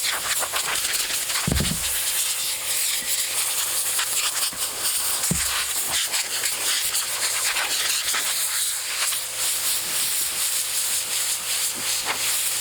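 Continuous abrasive scratching and rubbing on the rusty steel head of an old axe as it is cleaned up, with two dull knocks, one about a second and a half in and another about five and a half seconds in.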